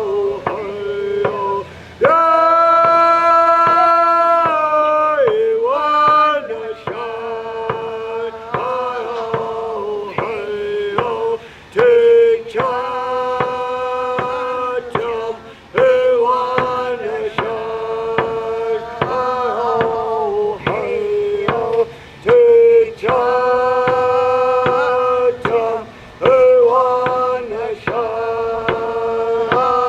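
A man singing a chant-like song in long held notes, over a steady beat of sharp strikes.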